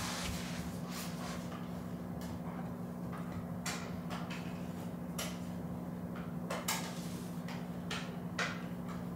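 Scattered household clicks and knocks, about seven over several seconds, the sharpest two near the end, over a steady low hum.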